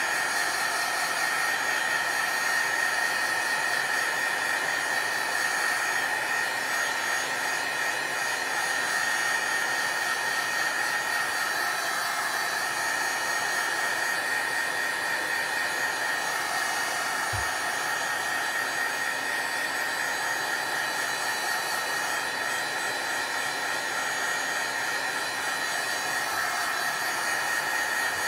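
Handheld craft heat tool running continuously, its fan blowing hot air with a steady whine, drying wet watercoloured paper.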